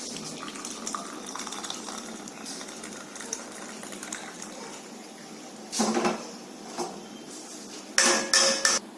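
Steel kitchen vessels and utensils clinking and clattering while a hot herbal decoction is strained, with a clatter about six seconds in and a louder ringing metal clank near the end.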